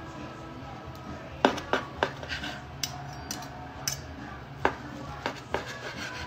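Chef's knife and metal fork cutting cooked chicken on a cutting board. About ten sharp clicks and taps come as the blade strikes the board and the fork knocks against the knife, irregularly spaced, the loudest about a second and a half in.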